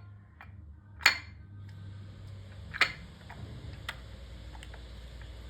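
Hands playing with freshly made glue-and-borax slime: soft squishing with a few sharp clicks and pops, three of them standing out at about 1, 3 and 4 seconds in.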